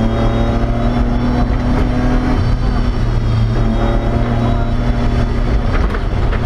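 BMW E30 rally car's engine running hard under load at fairly steady revs, with the note shifting slightly a couple of times, heard from inside the stripped cabin along with road and drivetrain noise.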